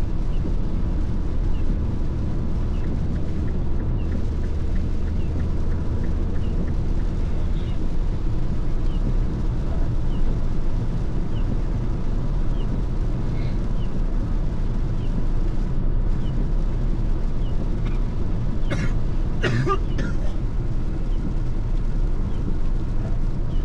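Mini Clubman running, heard from inside the cabin: a steady engine and road rumble whose low note shifts about a third of the way in, with faint light ticks about once a second. Near the end come three short hissy bursts.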